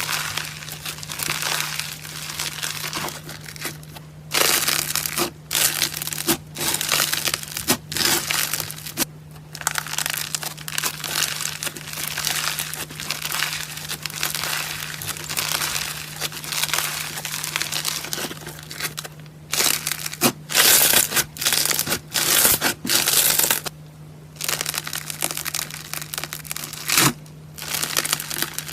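Slime being squeezed, pressed and stretched by hand, giving irregular crackling, squishing and crunching sounds with frequent louder bursts. A faint steady hum runs underneath.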